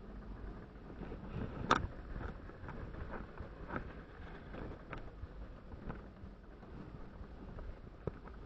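Mercury outboard motor running as the boat moves, with wind and water noise and a sharp knock about two seconds in.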